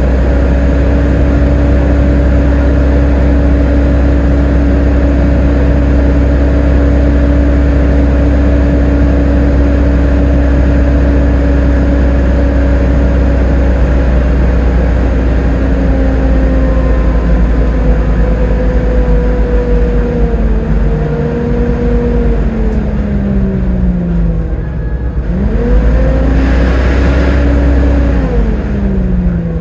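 Volvo B7TL double-decker bus under way, its seven-litre six-cylinder diesel rumbling under a strong whine, the 'hoover' sound. The whine holds a steady pitch for a long stretch, then falls as the bus slows. It climbs again as the bus picks up, then falls once more near the end.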